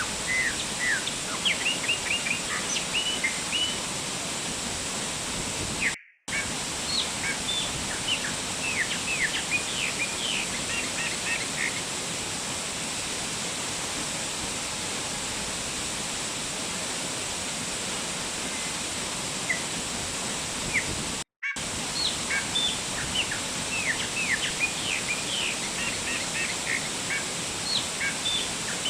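Waterfall rushing steadily, with many small birds chirping in quick clusters of short calls over it. The whole sound cuts out for a moment twice.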